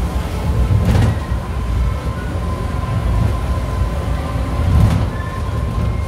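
Monorail car running along its track, heard from inside the cabin: a steady low rumble with a thin constant whine, and a sharp knock about a second in and another near five seconds.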